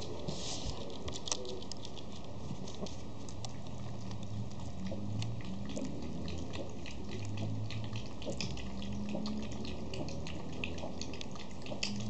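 Schipperke puppies' claws clicking and pattering on a wooden floor as they play, with many short, irregular clicks.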